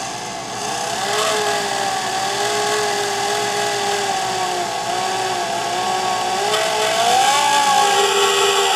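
Handheld power drill running slowly in reverse, a drill-out extractor bit cutting into a broken M10 exhaust manifold stud in a KA24DE cylinder head. A steady motor whine whose pitch wavers slightly as the trigger and load change.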